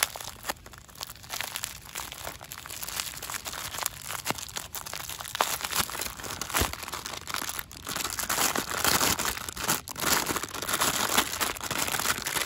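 Clear plastic packaging film crinkling and rustling as hands pull it open and peel it off a small toy. The crinkling grows denser and louder in the last few seconds.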